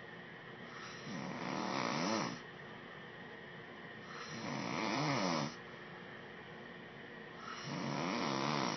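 A man snoring in his sleep: three snores about three seconds apart, each lasting about a second, with a wavering, buzzing pitch.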